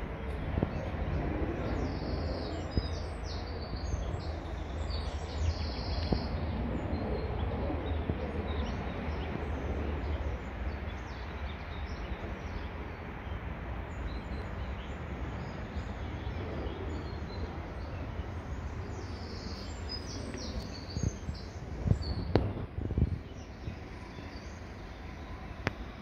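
Small songbirds chirping in the trees, in short calls scattered through the clip, over a steady low rumble. A few thumps near the end.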